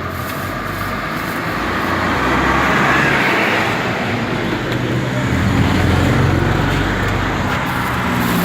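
A motor vehicle's engine running close by, growing louder and easing off twice, like traffic passing.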